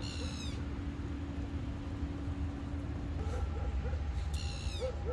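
A spatula scraping cream sauce out of a non-stick frying pan: two short squeaky scrapes, one at the start and one near the end, over a steady low rumble.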